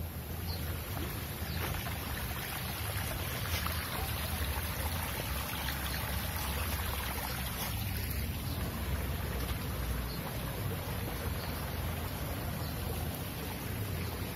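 Steady rushing of hot-spring water, with a constant low rumble underneath.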